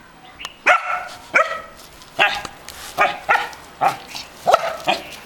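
Belgian Shepherd-type dog barking repeatedly: about nine sharp, high-pitched barks, one or two a second.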